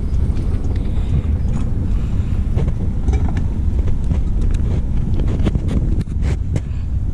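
Wind buffeting the microphone as a heavy low rumble, with a run of short sharp clicks and knocks from about two and a half seconds in.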